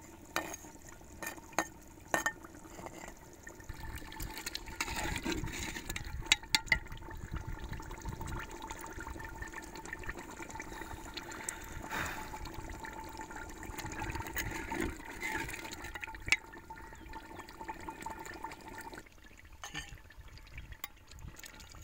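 Beef curry bubbling in an open clay pot, with many scattered pops and clicks as its last water cooks off in ghee. A faint steady tone underneath and much of the bubbling drop away about three seconds before the end.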